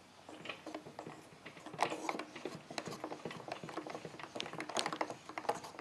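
Router table lift being height-adjusted by its hand crank: a continuous run of small, irregular mechanical clicks and ticks as the crank turns the lift's adjusting shaft.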